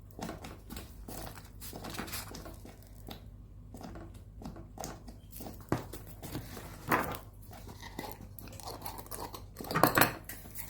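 Crinkly rustling and clicking as seasoning packets and containers are handled and shaken into the pot, with three louder knocks in the second half.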